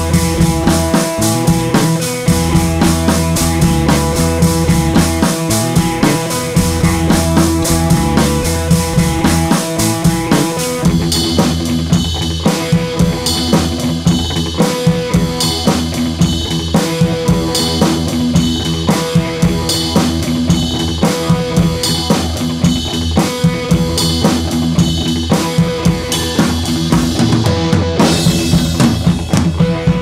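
Background music with a steady drum-kit beat; the drums turn busier and brighter about ten seconds in.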